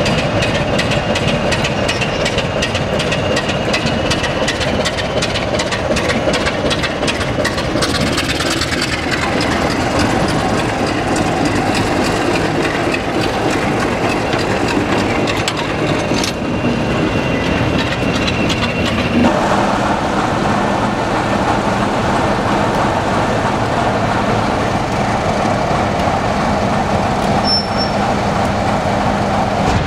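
Heritage British diesel locomotives running and moving slowly: a Class 27, a Class 20 and the Class 45 'Peak' D123 in turn, their diesel engines running steadily. The sound changes abruptly several times as one locomotive gives way to the next, with quick ticking in the first few seconds.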